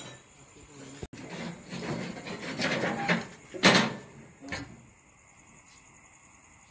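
Rubbing and scraping as hands work a PVC pipe and a metal tin of PVC solvent cement. A sharp clack comes about three and a half seconds in, a lighter click follows just after, and then it goes quiet.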